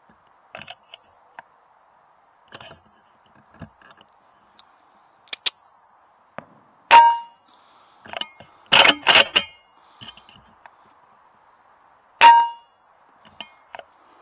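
Two shots from an AGT Uragan 2 air rifle, each a sharp crack with a short metallic ring, about five seconds apart. Between them comes a quick run of mechanical clacks and clatter from handling the rifle, with scattered small clicks and a faint steady hum underneath.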